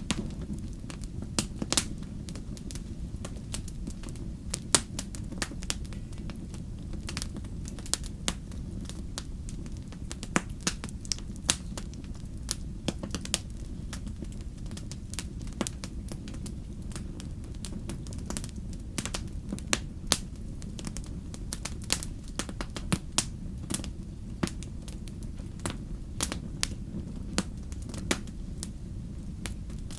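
Wood fire burning with a steady low rumble and many sharp, irregular crackles and pops.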